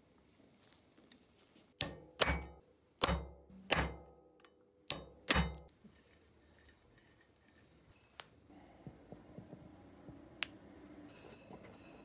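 Six sharp metal-on-metal taps with a short ring, some in quick pairs, as a metal part of a crimp press is knocked into place during reassembly. Later there is faint scraping and a few light clicks from the parts being handled.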